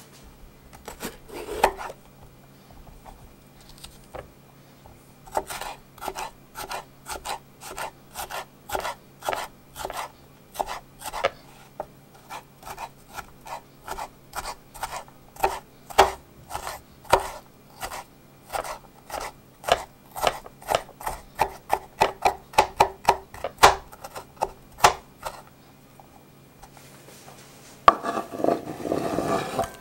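Kitchen knife chopping a red bell pepper on a wooden cutting board, sharp strokes at about two or three a second. Near the end the knife scrapes the diced pepper across the board.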